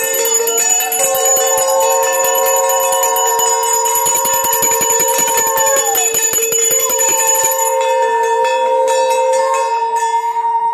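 A brass puja hand bell is rung rapidly and continuously, with long sustained notes from conch shells blown over it. The bell stops about three quarters of the way through. The conch notes break off briefly and then sound again.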